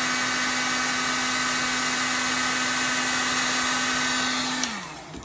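Heat gun blowing steadily, a loud rushing hiss over a steady motor hum, while it melts the solder ring inside a solder-seal heat-shrink wire connector. Near the end it is switched off: the hum slides down in pitch as the fan winds down, and a sharp click follows.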